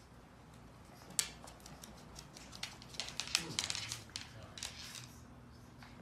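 A pug puppy scuffling on a hardwood floor as it tugs and paws at a striped cloth: irregular light clicks and scrapes, busiest between about one and five seconds in.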